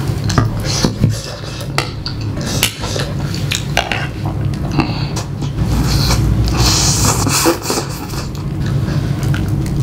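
Close-up eating sounds: chewing, with wooden chopsticks clicking and scraping on a plate, and noodles slurped in a hissy burst about six seconds in. A steady low hum runs underneath.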